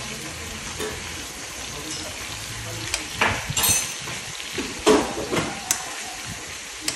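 Beef sizzling in a frying pan on a portable gas stove, a steady hiss. A metal utensil scrapes and clinks against the pan a few times, about three seconds in and again around five seconds.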